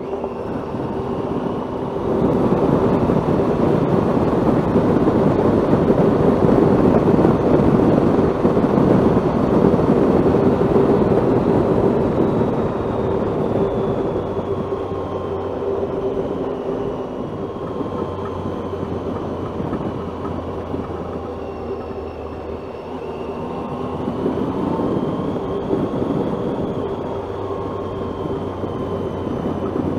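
Motorcycle on the move: the engine runs at a steady hum under heavy wind and road noise. The noise swells about two seconds in and eases off after about twelve seconds.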